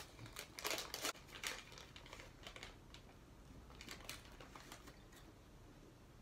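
Plastic M&M's candy wrapper crinkling and crackling as it is opened by hand, a dense burst of crackles from about half a second to a second and a half in, then a shorter burst of rustling around four seconds.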